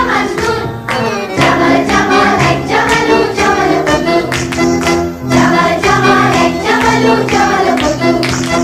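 Background song: a voice singing a melody over instrumental music with a beat.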